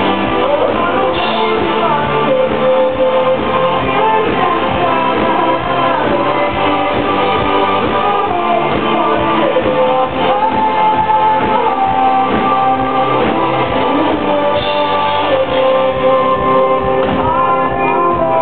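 A live rock band playing a song with a sung vocal over electric guitars, keyboards and a steady drum beat, recorded from the crowd. The top end is cut off, so it sounds dull.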